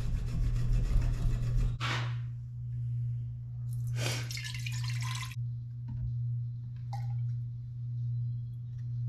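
Hand sanding strokes, abrasive paper rubbing on a knife's steel and handle, for the first two seconds or so, then stopping. A steady low hum runs underneath, and a short rushing noise comes about four seconds in.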